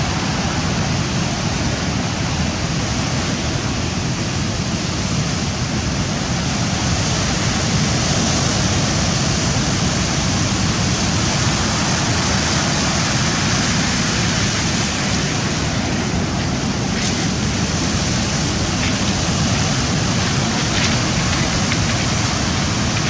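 Rough sea surf breaking along the shore: a steady, loud wash of noise, with a few faint clicks near the end.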